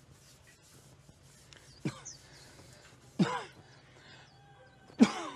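A man coughing three times, a second or more apart, the last cough the loudest. The cough of a father who is unwell.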